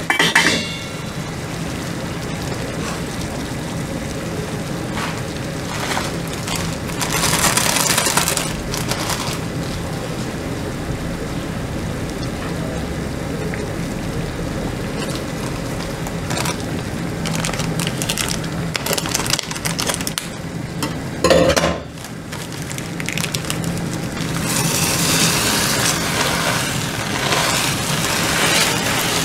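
Water at a rolling boil bubbling in a stainless steel pot on a gas stove, a steady noisy bubbling with a faint hum under it. A single short knock comes about two-thirds of the way through. Near the end a dry mix is poured in from a plastic packet.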